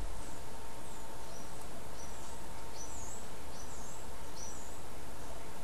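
Several short, high chirps, as of a small bird, over a steady background hiss and a faint hum. There is a soft low bump right at the start.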